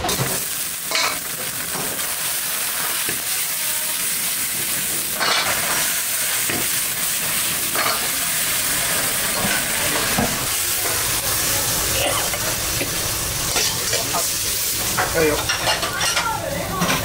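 Shrimp in chili sauce sizzling and frying in a wok over a gas flame, stirred with a metal ladle, with a few clinks of the ladle against the wok.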